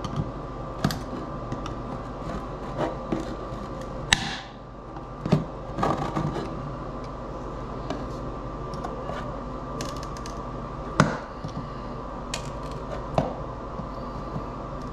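Metal multitool blade prying and scraping at a solar panel glued into a solar post-light cap: scattered clicks, taps and scrapes, with a sharper snap about four seconds in and another about eleven seconds in, over a faint steady hum.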